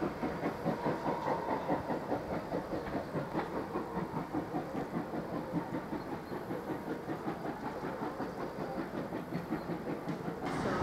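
GWR 0-6-0 pannier tank steam locomotive working, its exhaust beats coming steadily at about three a second.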